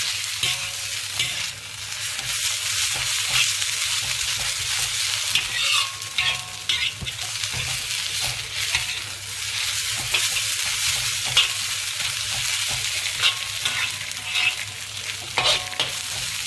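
Tuaran egg noodles sizzling in a hot wok as they are stir-fried with their sauces, the constant hiss broken by irregular scrapes and clinks of the utensil against the pan.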